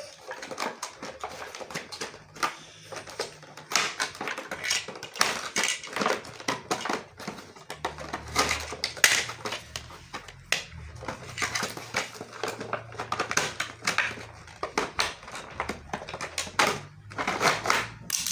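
Plastic action-figure parts and packaging being handled: irregular crinkling, rustling, tapping and clicking.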